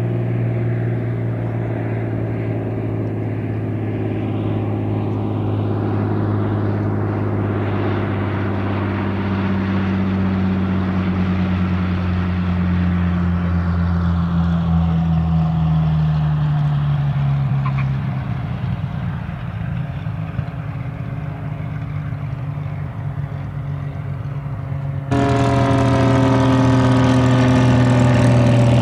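Hawker Hurricane Mk I's Rolls-Royce Merlin III V12 engine with a steady drone on approach, its pitch falling as it comes in to land and settling lower and quieter. Near the end it becomes suddenly much louder and brighter, running close by at low taxiing power.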